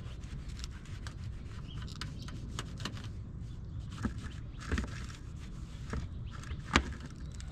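Small plastic clicks and scraping as the third brake light assembly and its clips are handled, with a few sharper clicks, the loudest near the end. A steady low rumble runs underneath.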